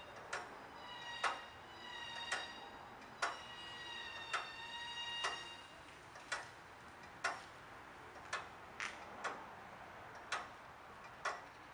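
Restored Howard street clock movement running, its escapement ticking about once a second, sharp metallic ticks. In the first half a metallic ringing hangs on between the ticks, then fades.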